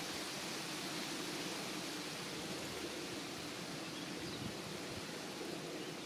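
Steady outdoor background hiss, even and unbroken, with no distinct calls or events.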